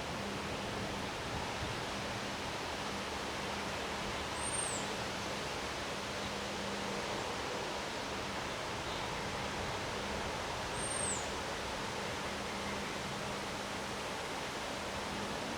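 Steady, even rush of a severe thunderstorm's high wind and rain. A short, high, falling bird-like chirp sounds twice, about four and a half and eleven seconds in, over a faint steady hum.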